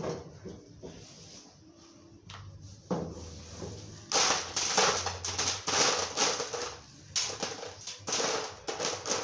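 Small white pebbles clattering and crunching as they are scooped by hand off the top of a plant pot. The rattling starts about four seconds in and comes in repeated handfuls.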